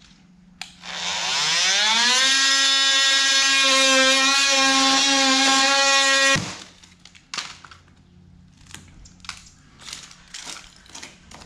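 Oscillating multi-tool spinning up with a rising whine, then running steadily for about five seconds as its blade cuts through a rotted wooden door jamb, and stopping abruptly. After it stops, a scatter of light knocks and cracks as the cut-off pieces of jamb are pulled out.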